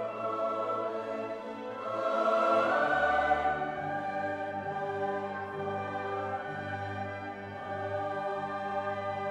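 Background music with long held notes over a low bass line, swelling about two seconds in and easing back after.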